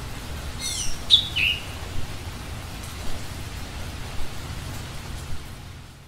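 A bird's chirps, a few quick calls falling in pitch about a second in, over a steady rushing noise that fades out near the end.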